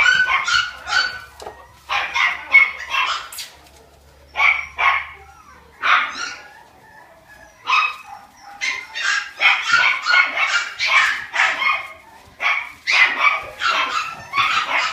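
Cavalier King Charles spaniel puppies yapping: quick runs of short, high-pitched barks in bouts, with brief pauses between them.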